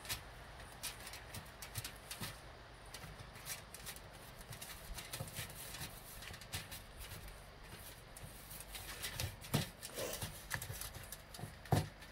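A spoon stirring and scraping a crumbly mix of flour, sugar and melted butter in a bowl: irregular small clicks and scrapes against the bowl, with a couple of louder knocks near the end.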